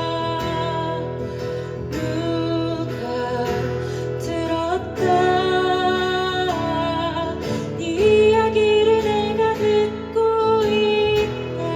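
Live slow, tender song from a small band, with singing in the mix: long held notes that slide to new pitches a few times over a steady low accompaniment.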